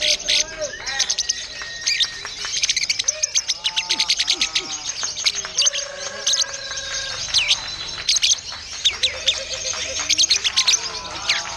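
Songbirds chirping and whistling in quick, dense runs of high notes, with sweeping calls and a few held whistles. A young songbird sings a strange, jumbled song.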